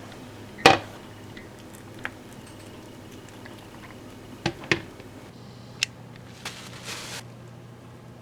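Kitchen utensils and dishes clinking and knocking while muffins are made, a handful of separate knocks with the loudest about half a second in and two close together past the middle. A short rustling hiss comes near the end, and a low steady hum sets in about five seconds in.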